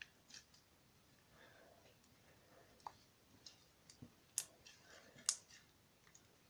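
Fluffy white glue-and-detergent slime being stretched and squeezed between the fingers, giving off scattered small clicks and pops, two of them louder about four and five seconds in.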